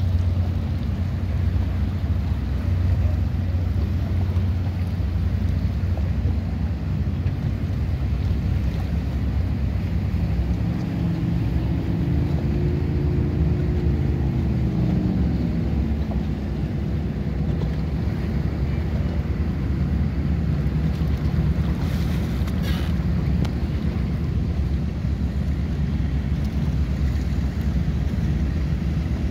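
Motorboat engines running on a lake, with wind buffeting the microphone over choppy water. About halfway through, one engine's pitch rises and then falls as it goes by.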